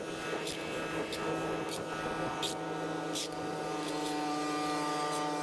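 A steel shovel scrapes and digs into dirt on concrete in short, sharp strokes, several times, one every second or less. Under it an engine idles steadily.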